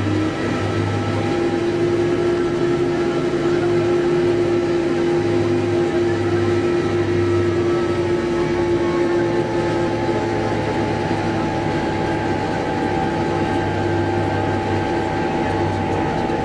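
New Holland LB115.B backhoe loader's diesel engine running steadily at road speed, heard from the cab, with a steady whine over the engine noise and a second, higher whine joining about halfway through.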